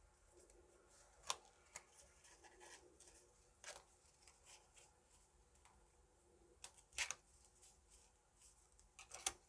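Hwatu cards, the small thick plastic Korean flower cards, being handled and snapped down onto a surface: four sharp clacks spaced a couple of seconds apart, with faint rubbing and sliding between them.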